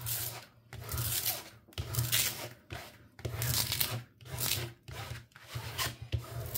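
A flat scraper is swept across the protective plastic film over a diamond-painting canvas to smooth it flat. It makes a rubbing scrape in repeated strokes, about one a second.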